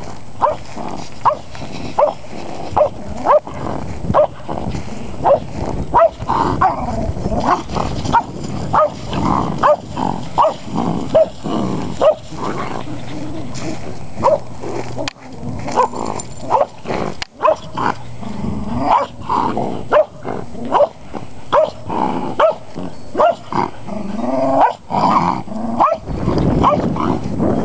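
Dogs play-fighting: short, sharp barks repeating about twice a second, over low growling.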